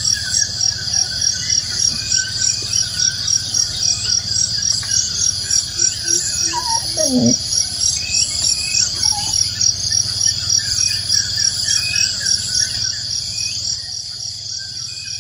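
A loud, steady insect chorus, pulsing several times a second, with birds chirping over it. The pulsing eases about two seconds before the end, and one falling call sounds about halfway through.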